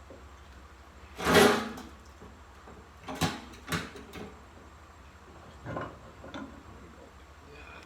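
Clunks and knocks of metal parts being fitted into a car's rear wheel tub to set up a hydraulic spreader: one loud scraping clunk about a second in, then a couple of sharper knocks, and fainter ones near the end.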